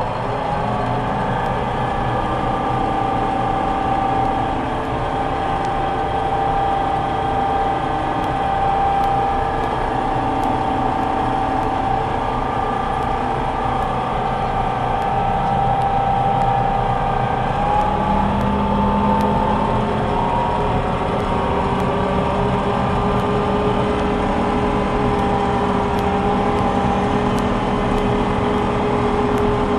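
Small combine harvester running under load while cutting soybeans: its engine and threshing machinery make a steady whine, heard from inside the closed cab. The whine shifts in pitch about two-thirds of the way through.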